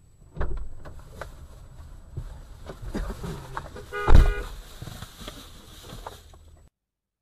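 Low vehicle rumble with scattered knocks, and a short car-horn blast about four seconds in, the loudest sound, as one car edges into the side of another. The sound cuts off suddenly near the end.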